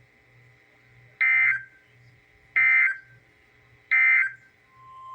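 Three short buzzy bursts of EAS SAME digital data, evenly spaced about 1.4 seconds apart: the end-of-message code that closes a weather radio alert. Near the end a steady single tone starts and grows louder.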